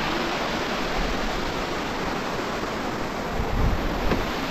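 Steady rush of a waterfall's cascades tumbling over rocks, with a few low bumps near the end.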